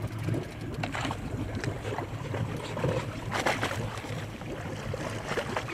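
A hooked halibut splashing at the water's surface beside the boat as it is gaffed, with several short sharp splashes and knocks, the loudest about three and a half seconds in. Under it runs a steady low hum of the boat's motor, with wind on the microphone.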